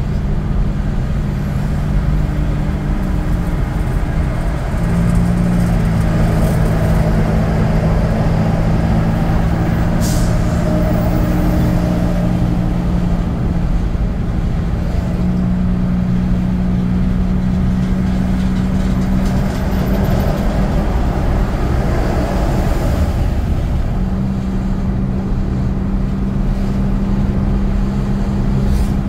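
Motor vehicle running on the road: a steady engine hum with road noise, its note holding level and then stepping to a new pitch several times as the engine speed changes. A brief sharp hiss or click comes about ten seconds in.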